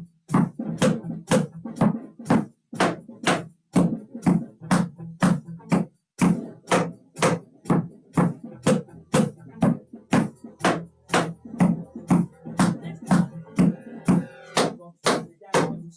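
Metal taps of tap shoes striking a plywood tap board in a steady rhythm, about three sharp taps a second, each with a low woody thud from the board.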